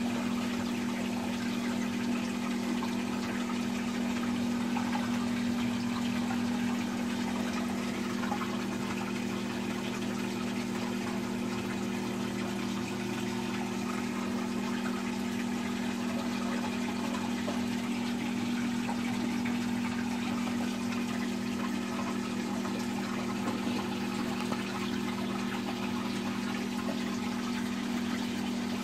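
Saltwater aquarium pumps running: a steady electric hum over the even rush and trickle of circulating water.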